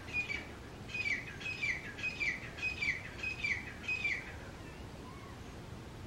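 Grey francolin giving its loud territorial call: about seven quick repeated phrases, each a clear high note slurring downward. The calling stops a little after four seconds in.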